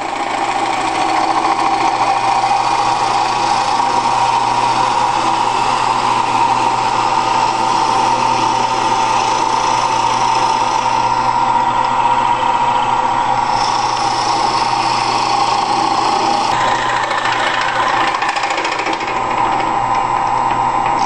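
Converted 10x18 wood lathe running with a cutting tool taking a continuous cut: a steady machine hum with cutting noise over it, its character shifting a couple of times.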